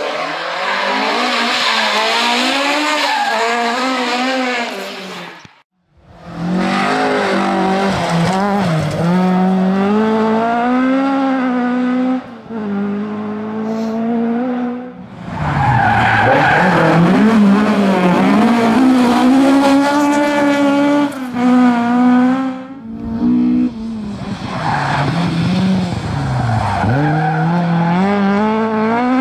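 Ford Escort RS1600 rally car's twin-cam four-cylinder engine revving hard at full throttle, its pitch climbing and dropping with gear changes and lifts, in several passes. The sound breaks off sharply about six seconds in.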